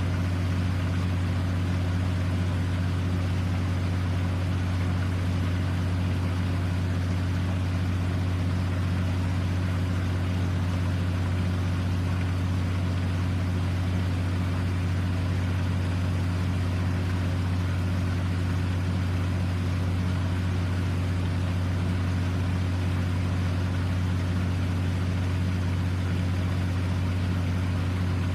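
Steady low mechanical drone, unchanging throughout.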